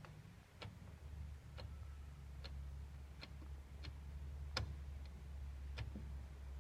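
Bosch washing machine running with a low steady hum and a sharp click about once a second.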